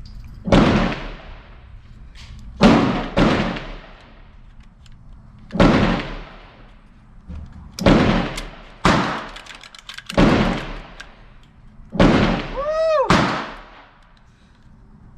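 Shots from an AR-15 pistol firing .22 LR through a CMMG conversion kit, about eight single shots with gaps of one to three seconds, each trailing off in a long echo. Near the end one shot is followed by a short whine that rises and falls.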